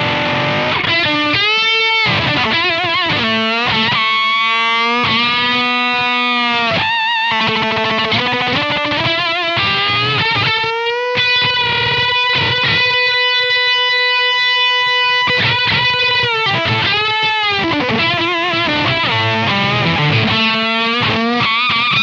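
Electric guitar played through a DSM & Humboldt Simplifier MK2 preamp set for an aggressive fuzz, with the bass turned down and the middle and treble fully up. The lead notes are bent and wavering, with one note held for several seconds midway, in a fuzz tone that sounds almost like an octave fuzz.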